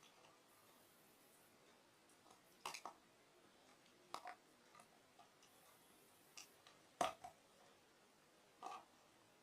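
Near silence broken by four short, sharp crunching clicks, spaced a second or two apart; the loudest comes about seven seconds in.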